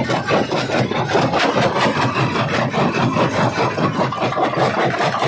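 Jaw crusher crushing stone: a steady, dense grinding and crackling of rock breaking between the jaws, with many rapid irregular cracks and the machine running underneath.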